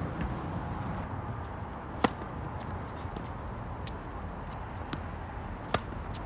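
Tennis balls struck by rackets in a hard-court singles rally: two sharp, loud hits about two seconds in and near the end, with fainter hits and bounces in between. A steady low rumble runs underneath.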